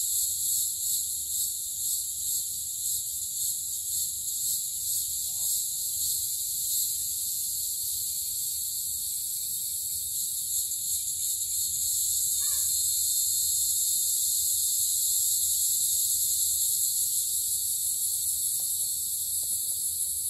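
A steady, high-pitched insect chorus trilling continuously, pulsing at first and settling into a smoother, slightly louder drone about halfway through. A brief chirp sounds once near the middle.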